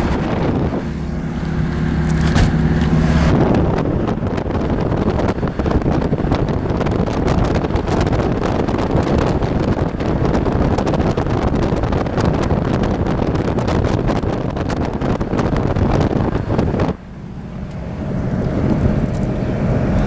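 Cabin sound of a moving Toyota: engine and road hum, then from about three seconds in a loud rush of wind through an open side window that cuts off suddenly near the end, leaving the engine hum again.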